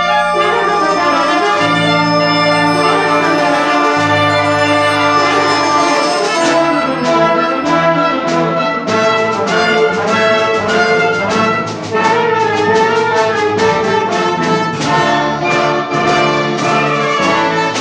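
An instrumental ensemble playing at a concert. It holds sustained low chords for the first six seconds or so, then moves to short, repeated chords in a steady rhythm.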